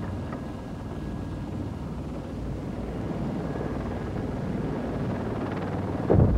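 Helicopter noise heard inside the cabin: a steady low rumble with a faint high whine. A loud thump comes near the end.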